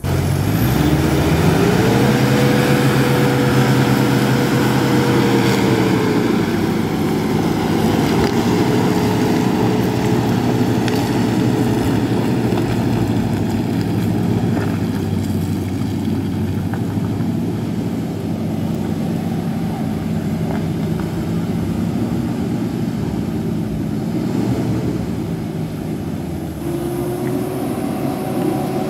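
Pickup truck engine revved hard and held at high revs: the pitch climbs over the first two seconds, holds, steps down a little about six seconds in, and rises briefly then drops again near the end.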